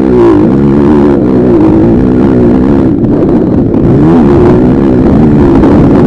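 Motocross dirt bikes running loud on the track, their engine pitch rising and falling continuously as the riders work the throttle.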